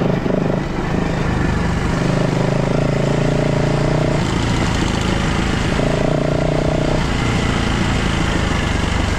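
Enduro motorcycle engine running under way, its pitch holding steady for a second or so and then shifting as the throttle changes.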